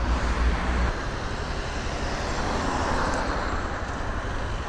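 Motorcycle engine running low under steady traffic and road noise, with a swell of road noise peaking about halfway through.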